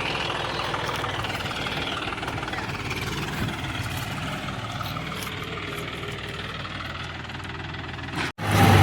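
John Deere tractor's diesel engine idling steadily. Near the end the sound breaks off for an instant and comes back louder.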